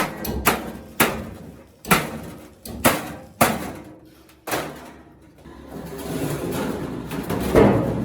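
Hammer blows on oil-drum sheet metal: irregular sharp strikes about half a second to a second apart, each ringing briefly. The strikes pause for a few seconds after the middle, then start again near the end.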